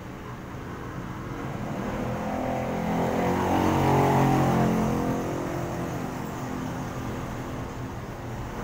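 Street traffic, with motorcycles passing close by. The engine sound swells to its loudest about four seconds in, then fades.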